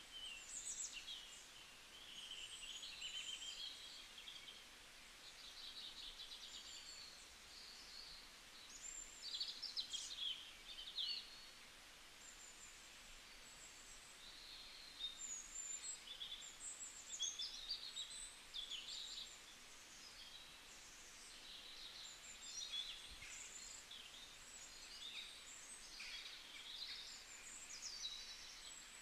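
Faint birdsong: small birds chirping and twittering in quick, high-pitched phrases with short gaps, over a low steady hiss.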